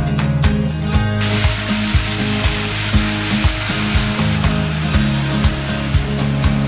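Diced chicken sizzling as it fries in oil in a pan; the sizzle comes in about a second in. Under it runs background music with a steady beat.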